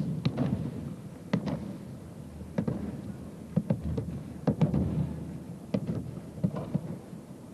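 Repeated thuds and slaps of bodies hitting the mat as aikido partners are thrown and take breakfalls, about one or two falls every second.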